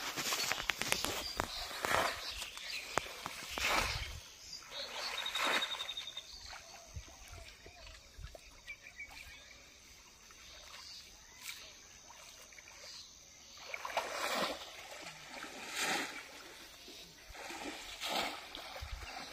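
Shallow pond water splashing and sloshing in irregular bursts as a person wades through it and drags a hand fishing net.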